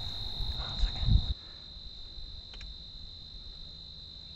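Steady high-pitched trill of night insects such as crickets, with a couple of low bumps about a second in. Just after that the sound drops to a fainter, steady insect trill.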